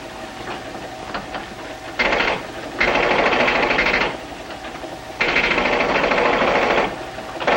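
An arcade machine-gun game firing in rapid rattling bursts: one short burst about two seconds in, then longer bursts of a second or more, four in all.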